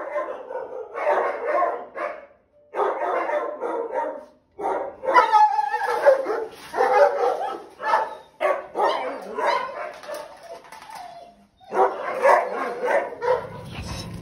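Several kenneled dogs barking in repeated overlapping bouts, with short pauses between them.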